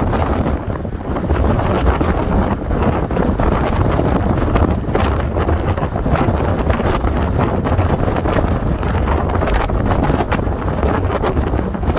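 Strong gusty mountain wind buffeting the microphone, a loud steady rumble that swells and eases with the gusts.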